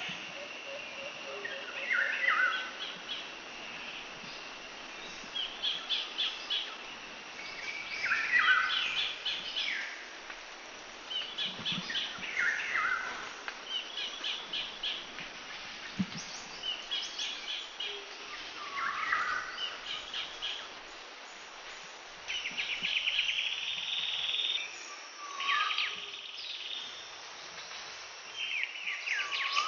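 Birds chirping over a steady background hiss: short phrases of quick repeated notes, a new phrase every two to three seconds.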